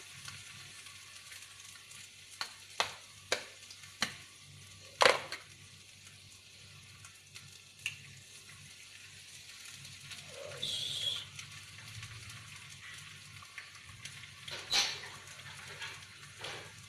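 Ground spice paste sizzling in hot oil in a frying pan, with a few sharp taps as eggs are cracked against the pan, the loudest about five seconds in.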